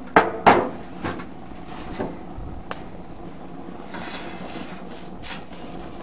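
Metal grill spatulas clattering and knocking against a gas grill's steel griddle plate as they are picked up and handled: two loud clanks at the start, then lighter knocks and a sharp click, and softer scraping near the end.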